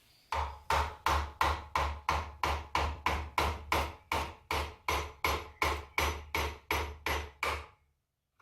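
Hammer striking metal in a steady run of about twenty blows, roughly three a second, stopping near the end.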